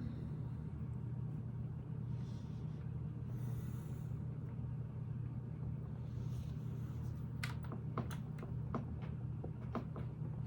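Lego plastic pieces clicking as they are handled and fitted, a run of several sharp clicks in the second half, over a steady low hum.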